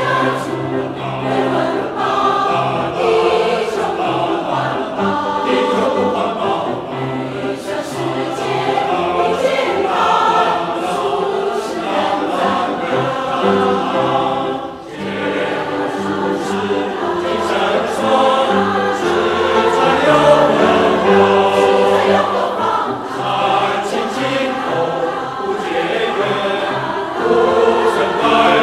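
Mixed choir of women and men singing a song in Chinese, accompanied by a Steinway grand piano. The choir pauses briefly about halfway through before the next phrase.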